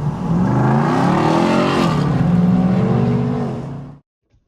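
Electric motor of an RC truck whining under throttle, its pitch gliding up and down, then cutting off abruptly about four seconds in.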